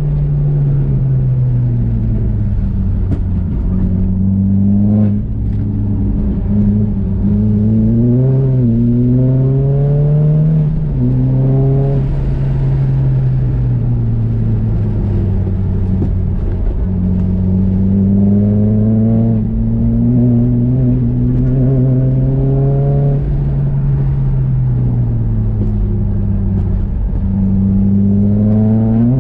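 Nissan Juke's engine under hard driving on a race track, accelerating and easing off again and again. The engine note climbs in pitch several times and falls away between the climbs.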